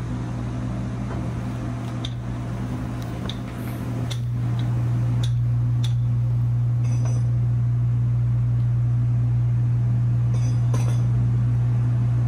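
Steady low machinery hum, a little louder after about four seconds, with a few light metallic clinks from a wrench loosening the cup nut on a marine diesel fuel injector's nozzle.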